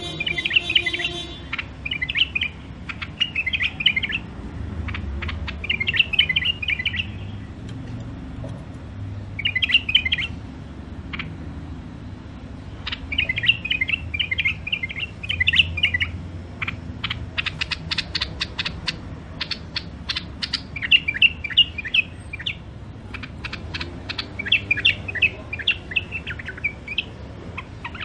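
White-eared bulbul singing short bursts of clear warbling song, broken by pauses. In the second half, runs of sharp clicks sound between the phrases.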